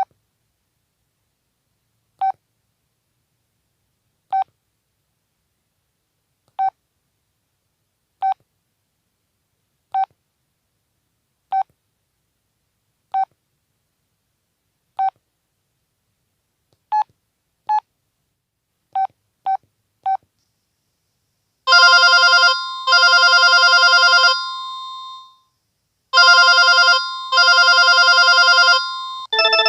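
Audiovox CDM-8900 cell phone's key beeps: short single tones every second or two as the menus are stepped through, a few in quicker succession. Near the end a ringtone starts playing, a double ring that repeats once.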